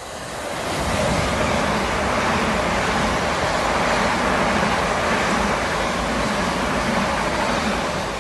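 Class 387 Electrostar electric multiple unit passing close by: a loud, even rush of wheels on rail and air that builds about a second in, holds steady while the coaches go past, and eases off near the end.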